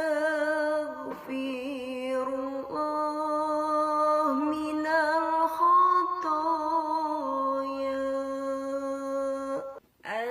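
One voice chanting in long, drawn-out held notes with a slight waver, stepping and sliding between pitches, breaking off briefly near the end, in the manner of a devotional Arabic istighfar chant.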